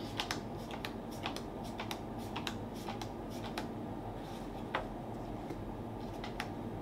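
Magic: The Gathering trading cards being handled: cards slid off a held stack and laid down on a playmat, giving a run of light clicks and taps. The clicks come thick in the first three seconds or so, then only a few scattered ones.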